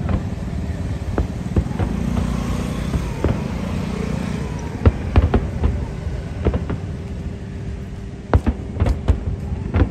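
Fireworks show: aerial shells going off in irregular sharp bangs over a steady low rumble, the bangs coming thicker in a quick cluster near the end.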